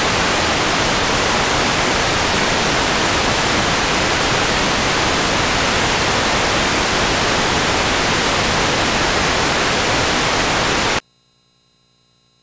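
Loud, even hiss of television static. It cuts off abruptly about eleven seconds in, leaving a faint steady hum.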